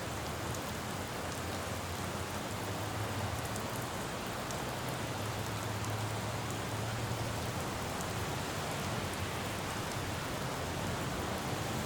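Steady rain falling on a city road, with scattered drop ticks over an even hiss. A low rumble of road traffic underneath swells in the middle and eases off.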